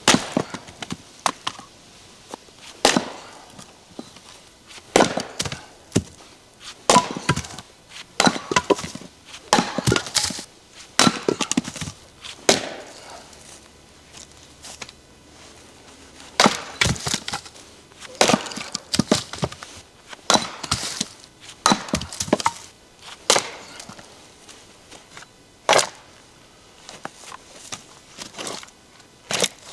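Go-devil splitting maul striking firewood blocks, the green wood cracking apart and split pieces knocking against each other as they fall, in an uneven run of sharp wooden knocks.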